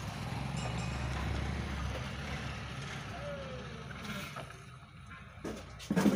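Low engine rumble that fades away over the first few seconds, then a loud knock near the end.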